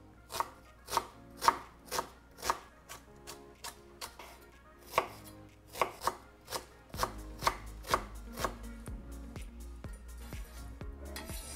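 Kitchen knife chopping onion on a wooden cutting board, sharp strokes about two a second, then a short scrape near the end.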